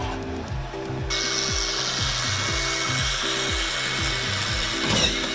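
Handheld power screwdriver running with a steady whine and hiss from about a second in, driving screws into a wall board, over background music with a steady beat.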